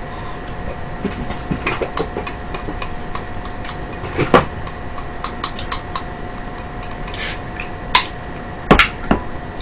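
Handling noise at a table: a quick run of small clicks and clinks as a plastic ice cooler is opened and something is taken out and handled, with louder knocks about four seconds in and twice near the end. A steady faint hum runs underneath.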